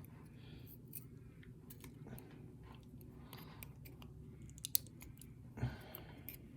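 Faint small clicks and light scraping as tiny brass lock pins are worked out of a pin-tumbler lock's core, with a sharper click about four and a half seconds in and a brief louder scuff just after.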